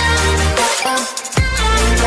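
Electronic dance music in a dubstep style, with heavy bass and sharp falling sweeps.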